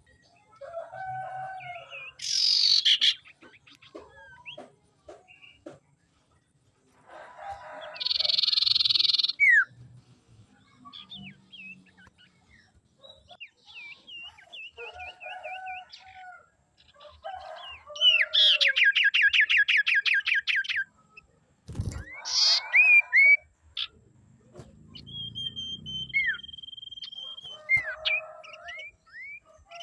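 Common iora song and calls: a varied run of harsh rasping notes, short whistled glides, a fast rattling trill about eighteen seconds in and a long steady whistle later on, with short pauses between phrases. A sharp click sounds once, about twenty-two seconds in.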